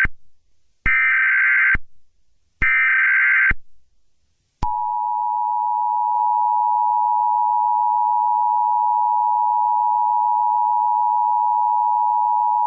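Emergency Alert System tones: the end of one and then two more harsh, buzzing digital data bursts of the SAME header, each about a second long with short gaps between. About four and a half seconds in, the steady two-tone EAS attention signal starts.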